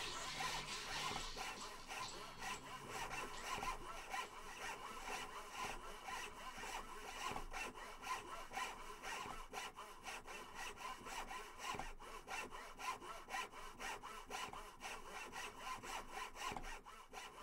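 Rapid, repeated rasping strokes, several a second and growing denser near the end, like scraping or sawing.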